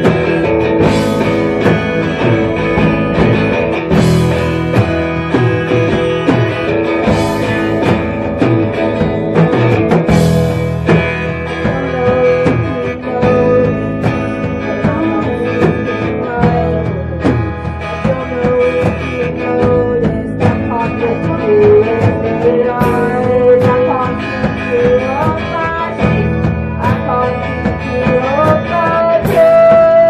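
A live rock band playing loudly: electric guitars and drum kit, with cymbal crashes every few seconds.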